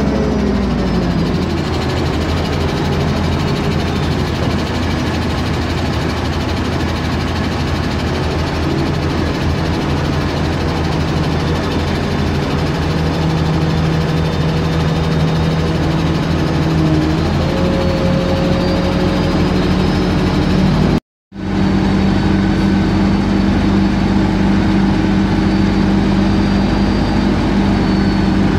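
Heavy diesel engine of a mobile crane running steadily as it lifts counterweight slabs, its pitch stepping down just after the start and rising again later. The sound cuts out completely for a moment about two-thirds of the way through.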